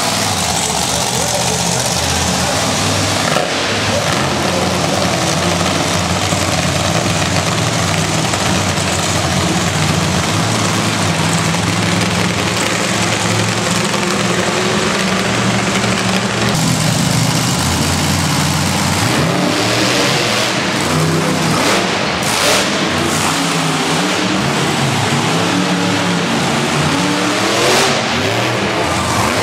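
Monster truck engines running loud and revving hard, the pitch climbing and falling again and again in the second half, with a few sharp bangs among them.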